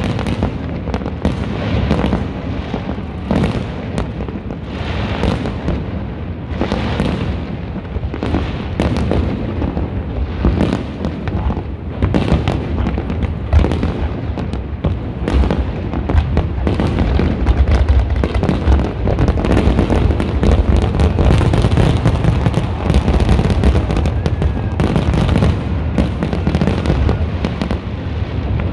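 Aerial fireworks shells exploding one after another with a heavy low rumble: separate bangs about once a second at first, then a dense, almost continuous barrage from about halfway through.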